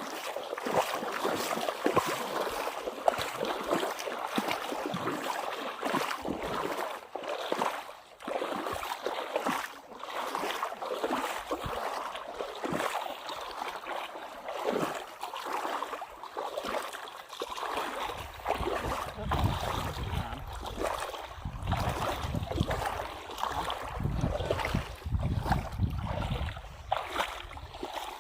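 Shallow water splashing and sloshing in many small uneven splashes, as a fish scoop net is worked through it by someone wading. About two-thirds of the way through, wind starts buffeting the microphone with a low rumble.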